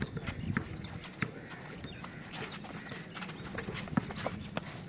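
Basketball bouncing and players' feet stepping and scuffing on a concrete court: irregular knocks, with one sharp knock about four seconds in.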